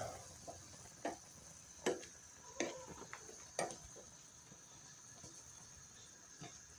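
Metal spoon stirring a pan of boiling chicken feet, knocking and scraping against the pan about five times in the first four seconds and once more near the end, over the broth's faint bubbling.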